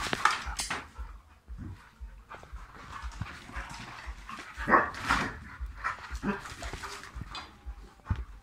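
Dog barking several times in short, sharp bursts, the loudest bark about five seconds in.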